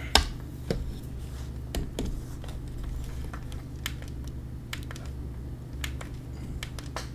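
Scattered, irregular light clicks and taps, like small objects being handled on a desk, over a steady low hum.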